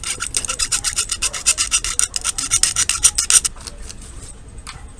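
Plastic bottom of a mechanical keyboard switch being trimmed down by hand, a fast run of rasping strokes, about eight a second, that stops about three and a half seconds in, followed by a couple of light clicks. The trimming is to let a switch that stays raised seat flush in the plate.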